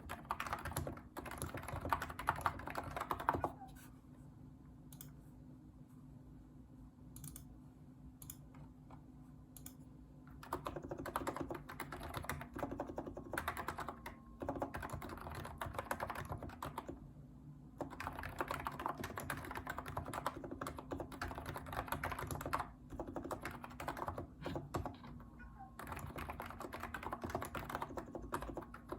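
Typing on a Hansung electro-capacitive (non-contact) keyboard with light 35 g switches: runs of quick keystrokes in bursts of a few seconds, with a longer pause of scattered single clicks after the first burst. A faint steady hum sits underneath.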